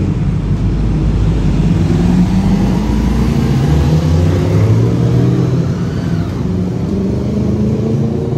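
A motor vehicle's engine running close by in street traffic, its pitch stepping up about halfway through as it accelerates.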